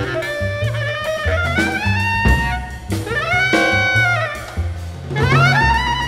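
Jazz sextet of soprano sax, bass clarinet, flugelhorn, piano, bass and drums playing: a wind melody with notes sliding up into long held tones, over a steady bass line and drums.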